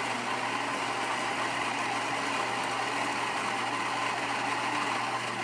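Gaggia Babila RI9700/64 super-automatic espresso machine's built-in grinder running steadily as it grinds beans for an espresso, a constant whirring noise over a low hum.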